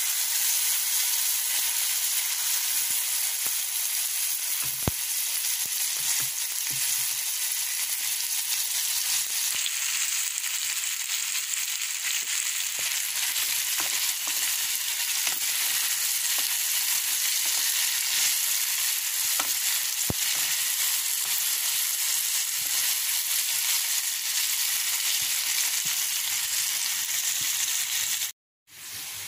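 Spine gourd pieces frying in hot oil in a kadai: a steady sizzling hiss with a few faint clicks. The sound cuts out briefly near the end.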